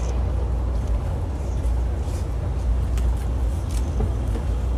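Street noise from idling vehicles: a steady low rumble with a few faint clicks.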